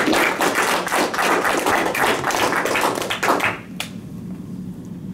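A small group applauding, many quick hand claps that stop about three and a half seconds in, followed by a single sharp click.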